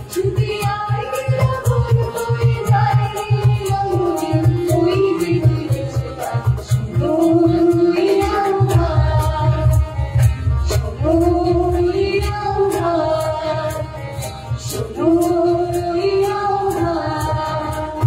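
Music: a song with a sung melody of long, gliding notes over a steady, driving drum beat.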